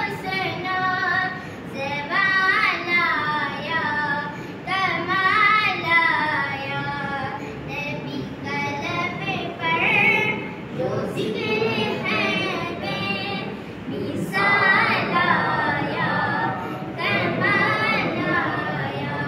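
A single voice sings a naat without instruments, in long ornamented phrases with wavering pitch and brief pauses between lines.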